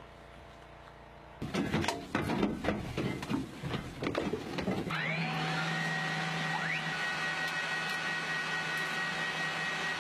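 Irregular knocks and rustling, then a steady electronic hum with several high whining tones from a military vehicle's control console and screens, with a short rising whine about five seconds in.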